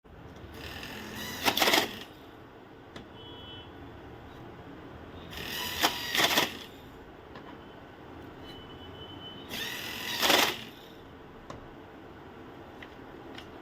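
Banknote counting machine running three times, each run a short mechanical whirr of about a second and a half that builds and then stops abruptly, over a steady background hiss.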